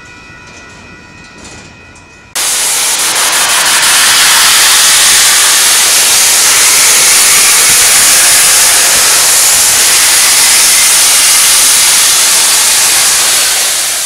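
Faint train noise with a few steady high tones, then about two seconds in a sudden cut to Union Pacific 4014 "Big Boy", a 4-8-8-4 articulated steam locomotive, venting steam: a loud, steady hiss that fades out at the very end.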